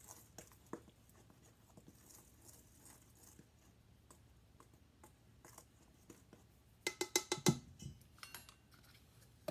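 Dry flour, salt and baking powder being stirred in a stainless steel mixing bowl: faint scraping and small clicks against the metal. About three-quarters of the way through comes a brief, louder rapid rattle with a ringing metallic tone.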